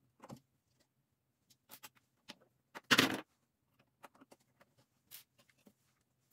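Scattered small plastic clicks and taps as a plastic piece is worked loose from a stock car radio's tabs, with one louder clatter about three seconds in.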